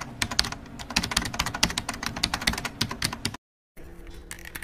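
Rapid keyboard-typing clicks, cutting off abruptly about three and a half seconds in; after a short silence, fainter sound follows.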